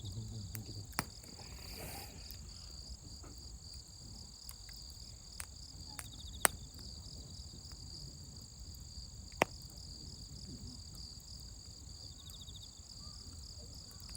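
Wood fire crackling, with scattered sharp pops, the loudest about six and a half and nine and a half seconds in, over a steady chorus of insects chirping.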